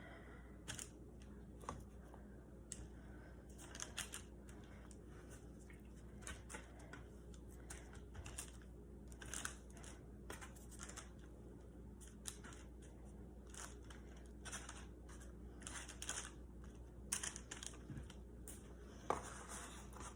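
Faint, irregular rustling and soft taps as seasoned raw chicken wings are set one by one onto a parchment-paper-lined baking tray, with the paper crinkling.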